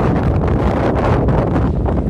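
Strong wind buffeting the microphone: a loud, steady, low rumbling noise.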